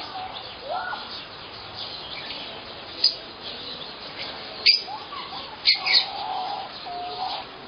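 Birds chirping and calling, with a few short, sharp high chirps standing out about three to six seconds in.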